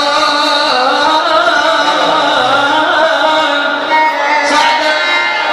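Male singer performing an Iraqi mawwal, drawing out long, wavering melismatic notes over music.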